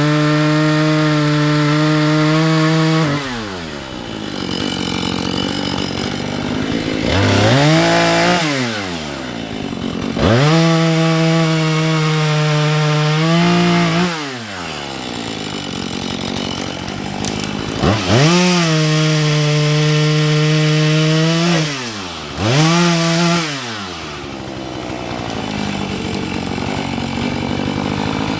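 Husqvarna 435 two-stroke chainsaw cutting, held at full throttle for stretches of a few seconds. It drops down and revs back up between cuts about five times, then runs low toward idle in the last few seconds.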